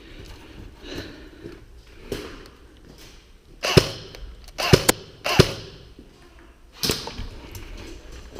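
Airsoft replica guns firing single shots: about five sharp cracks, spaced unevenly and bunched around the middle, with fainter knocks between.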